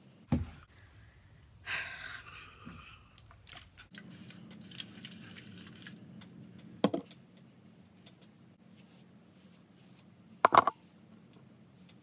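Hair-styling handling noises: rustling and scraping as gel is scooped from a jar and brushed into the hair, with a few sharp knocks. The loudest is a quick double knock near the end.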